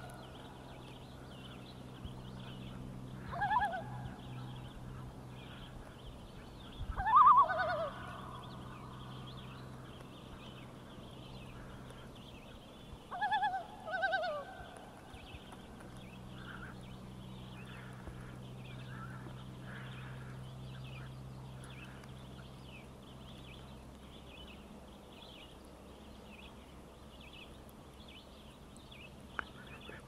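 Common loons giving tremolo calls, short bursts of rapid quavering notes: once about 3.5 s in, loudest about 7 s in, and a double burst around 13 to 14 s. The tremolo is the loon's alarm call, here set off by rival loons intruding on a loon family.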